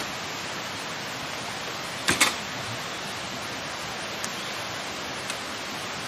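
A steady, even rushing noise, with a quick cluster of sharp knocks about two seconds in and two faint ticks later.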